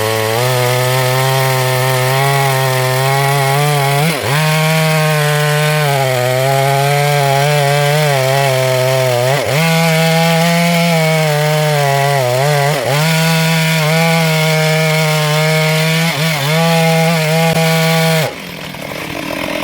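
Small chainsaw running at high revs while cutting through wood, its note dipping briefly every few seconds under load. Near the end the engine drops to a lower note, then revs up again.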